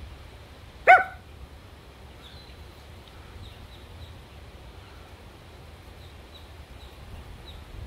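A Chihuahua gives a single short, high yip about a second in, with faint high bird-like chirps in the background.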